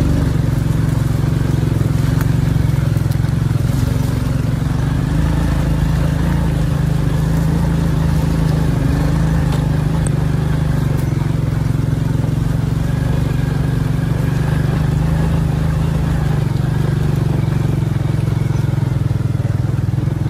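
Motorbike engine running steadily while riding, a constant low drone with no change in speed.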